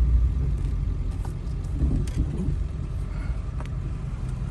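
Steady low rumble of a four-wheel-drive vehicle driving on a snowy road, heard from inside the cab, with a few faint ticks and knocks.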